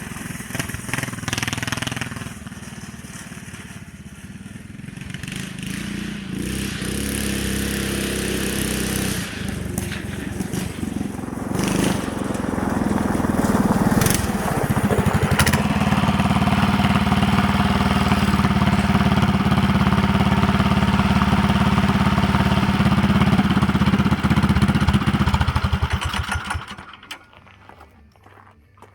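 Yerf-Dog go-kart's small single-cylinder engine running. It builds up over the first half, holds a steady high speed for about ten seconds, and drops away sharply near the end.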